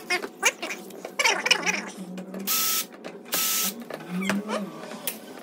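Cordless drill-driver running in two short bursts of about half a second each, a steady whine over a rush of noise, as screws are driven out of a door lock.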